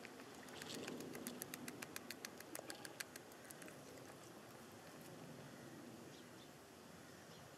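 A cat crunching dry kibble: a quick, even run of crisp crunches, about eight a second, for roughly three seconds. It stops about three and a half seconds in.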